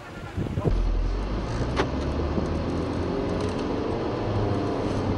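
A car engine running steadily, coming in suddenly about a second in, with one sharp click partway through.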